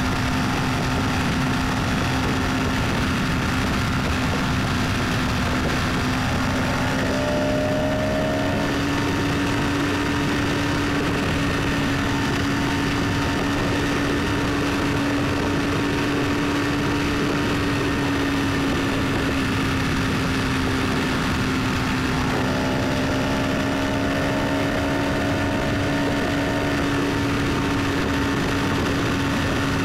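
A vehicle running steadily: a constant low engine or road drone over an even rushing noise. A fainter, higher whine rises slightly twice, about seven and twenty-two seconds in.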